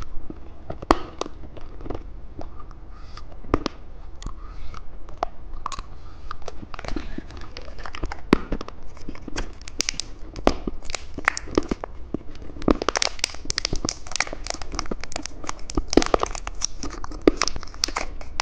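Plastic candy wrapper crinkling and tearing as it is opened, with many small crisp rustles and clicks that grow busier and louder over the last several seconds.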